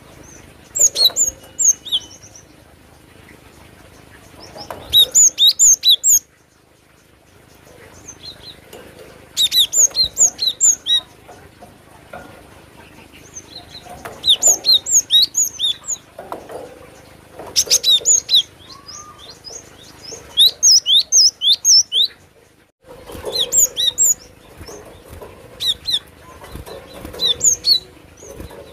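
Cinereous tit (glatik batu) singing: bursts of rapid, sharp, high-pitched notes, each lasting a second or two, repeated every few seconds.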